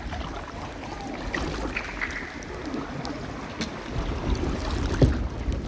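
Kayak paddles dipping into calm water, with small splashes and drips and a single knock about five seconds in. Wind rumbles on the microphone underneath.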